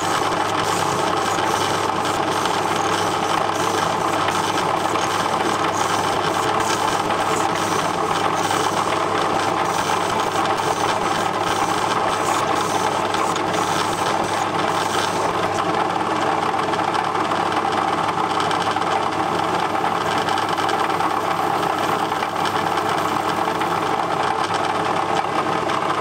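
Metal lathe running steadily, its three-jaw chuck spinning while a carbide insert tool faces off the end of a small round workpiece, with a dense machine whirr and rattle.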